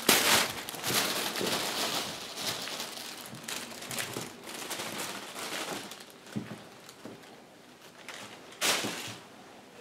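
Thin plastic shopping bag crinkling and rustling in irregular bursts as a cat with its head stuck inside drags it across a tile floor. The loudest rustles come at the start and again near the end.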